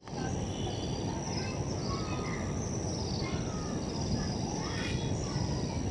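Outdoor ambience of scattered short bird calls over a steady high insect drone and a constant low rumbling noise.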